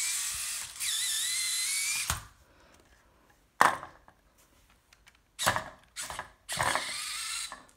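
A VEX robot's motor-driven four-bar cap lift running in several short bursts, its gear-reduced motors whining with a pitch that rises during each run. There are two runs in the first two seconds, a sharp click about three and a half seconds in, and three quicker runs near the end.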